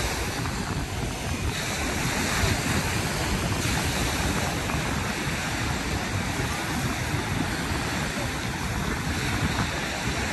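Steady wind noise on the microphone over the continuous rush of ocean surf.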